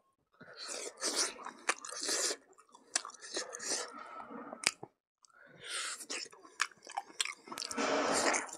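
Close-up eating sounds of a person biting and chewing meat off a cooked buffalo bone, with many sharp clicks of teeth and mouth. They come in two spells with a brief pause about halfway.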